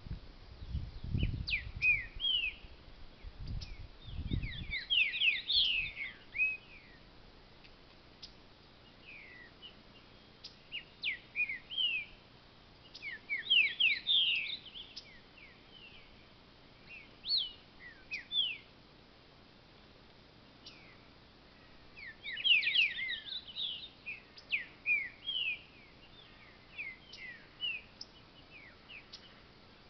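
Green-winged saltator (trinca-ferro) singing phrases of short, sliding whistled notes, in bursts of a few seconds with pauses between. A low rumble runs under the song in the first few seconds.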